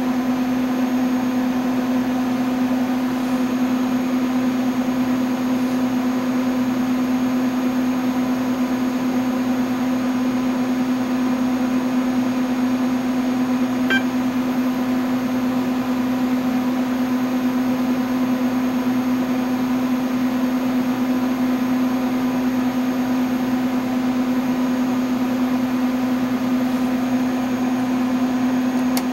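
Steady hum of a running PDP-8/M minicomputer's fans and power supply. About halfway through, the terminal bell gives one short beep, the signal that a pass of the diagnostic has completed successfully. A faint click comes near the end as a front-panel switch is flipped.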